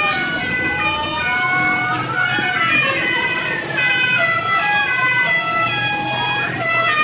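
Basuri telolet horns on odong-odong vehicles playing stepped multi-note tunes over one another in a horn battle, with a long rising glide about a second and a half in.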